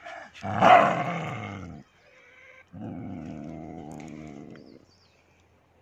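Snow leopard growling in anger: a loud snarl about half a second in, then a longer, quieter growl from about three to five seconds.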